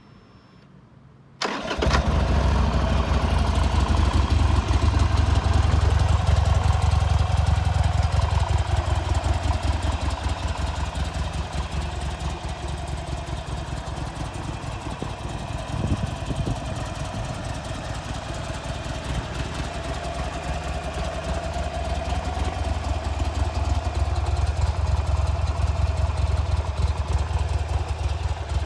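Buell Lightning XB9SX's V-twin engine starting about a second and a half in, then idling steadily. The level eases down through the middle and comes back up toward the end.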